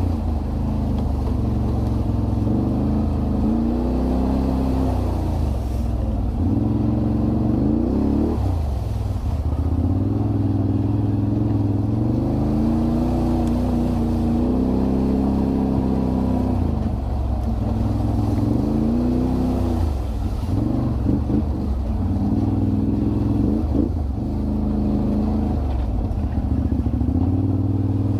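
Can-Am Renegade 1000 ATV's V-twin engine running under changing throttle, its pitch rising and falling again and again as it is ridden.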